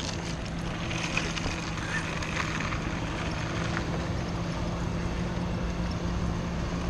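A bicycle rolling on asphalt, heard from a camera mounted on the bike: tyre and road noise with small rattles and clicks from the bike and its wicker basket, over a steady low hum.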